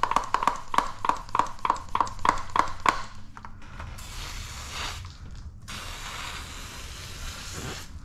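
Hand-pump pressure sprayer pumped up with quick squeaky strokes, about three a second, for the first three seconds. Then it sprays tack solution in two steady hisses, a short one and a longer one of about two seconds.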